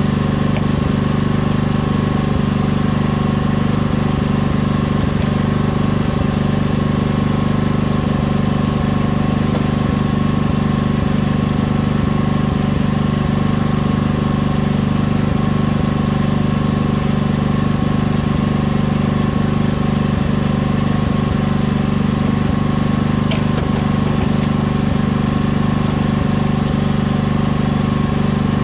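An engine idling steadily at one constant speed, a low even drone that never revs up or down.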